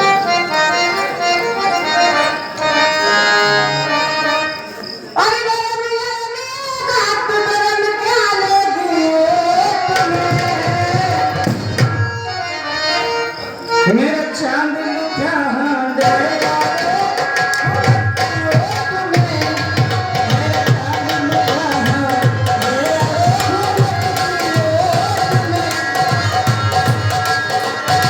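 Live Indian folk music: a pitched melody line with slides, joined about a third of the way in by a steady beat of low hand-drum strokes in the tabla family.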